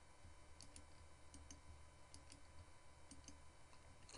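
Faint computer mouse clicks, in quick pairs about four times over, against near-silent room tone.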